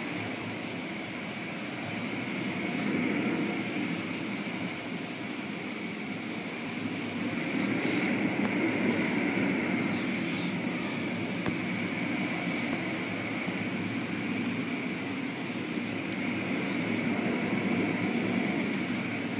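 Automatic car wash running, heard from inside the car: a steady rumble of machinery and water with a constant high whine. It swells louder a few times, with scattered light ticks on top.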